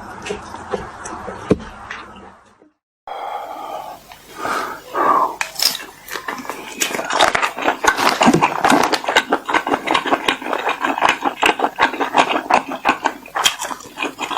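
Close-up chewing and crunching of food, a dense run of crisp crackles. A short gap about two and a half seconds in, then the crunching resumes louder and faster.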